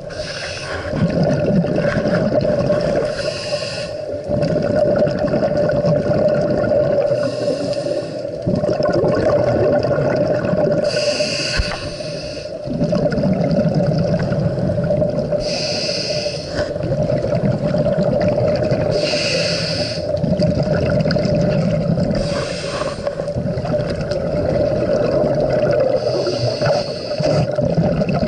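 A scuba diver's regulator breathing underwater: a short hiss of each inhalation every three to four seconds, alternating with low bubbling rumbles of exhaled air, over a steady hum.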